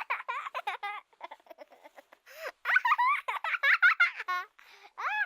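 High-pitched, childlike giggling and laughter in quick bursts, with a run of rapid laughing pulses near the end.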